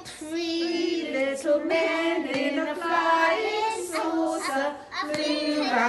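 A woman and a group of young children singing a nursery counting song together, the voices holding long sung notes.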